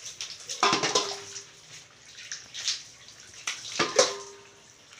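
Water poured from a plastic dipper over a small dog being bathed, splashing onto a tiled surface. It comes in two splashy bursts, about a second in and again near four seconds.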